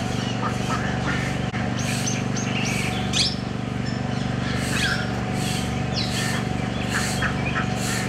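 Small birds chirping and calling on and off in short, quick, rising and falling notes over a steady low hum.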